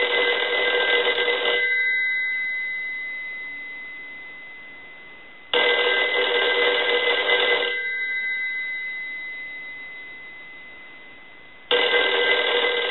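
Western Electric 302 rotary telephone's twin-gong bell ringing on a ring cycle, about two seconds on and four off. One ring is ending at the start, a second comes about five and a half seconds in, and a third starts near the end. After each ring the gongs ring on and slowly fade.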